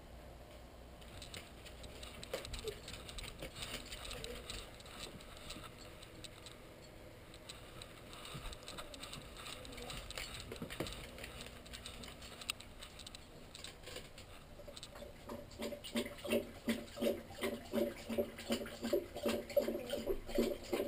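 A dog lapping water from a toilet bowl in a steady rhythm of about two to three laps a second, starting about fifteen seconds in. Before that there are only faint scattered clicks and shuffling.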